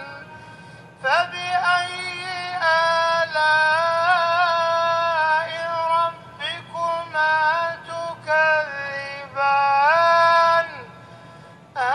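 A male imam's melodic Quran recitation, a single voice drawing out long held notes with small ornamented turns. One recited verse starts about a second in and ends about a second before the end.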